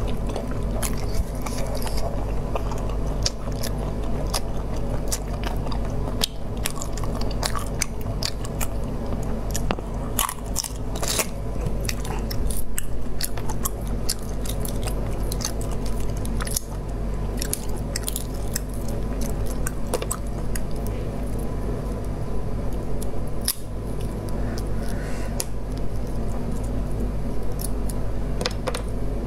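Close-miked eating sounds: a person biting and chewing braised pieces in chili sauce, with many short mouth clicks and snaps throughout, over a steady low hum.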